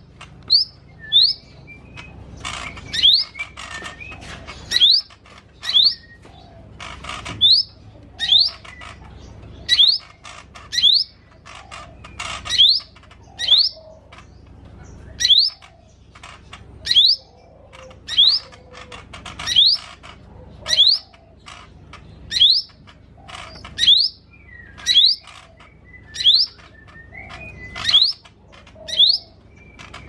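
Lesser green leafbird (cucak ijo mini) singing: a sharp rising whistle repeated about once a second, between bursts of quick chattering phrases copied from other birds' songs.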